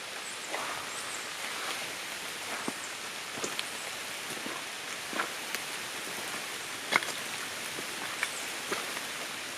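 Light rain falling on tree leaves: a steady hiss with scattered, irregular sharper ticks of single drops landing.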